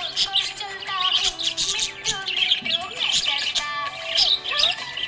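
Budgerigars chirping and warbling in a quick, continuous stream of short high notes, with music playing underneath.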